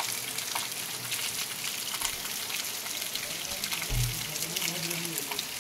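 Steady rain falling on trees and the ground: a dense hiss of many small drop ticks. A brief low thump comes about four seconds in.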